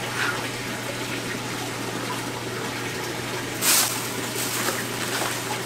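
Steady rush of water with a low pump hum from a saltwater aquarium's circulation system. About two-thirds through, a brief crackle of a plastic fish bag being handled.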